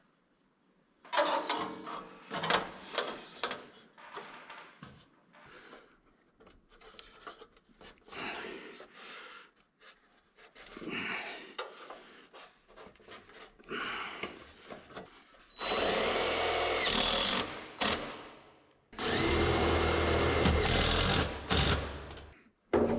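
Scattered clatter and knocks of wood and metal parts being handled, then a DeWalt cordless impact driver running screws in twice in the second half, each run lasting about two seconds.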